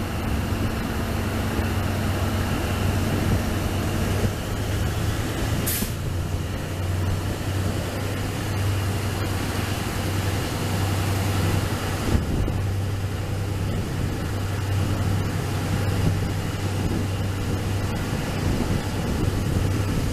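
Sri Lanka Railways Class W3 diesel locomotive under way, heard from its cab doorway: a steady low engine drone with wheel and rail noise and wind, and a brief hiss about six seconds in.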